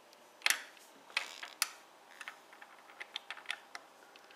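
Steel digital caliper being handled and repositioned on a 3D-printed plastic part: a run of irregular small clicks and taps, the first and loudest about half a second in.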